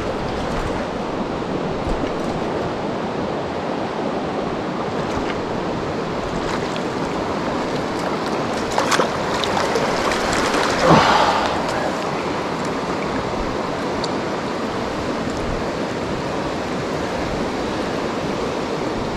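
Mountain creek water rushing steadily over rocks, with a couple of brief louder noises near the middle.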